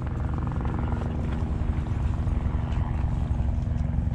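A steady low engine drone with a fast, even pulsing, growing slightly louder.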